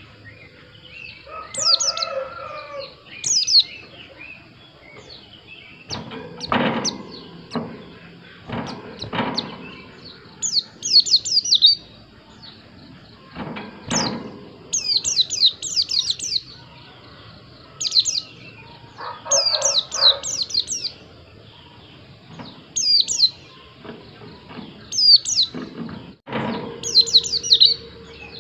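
White-eye (pleci) singing: short, rapid bursts of high, thin chirps that sweep down in pitch, repeated every second or two. A few dull knocks and a couple of lower calls fall between the phrases.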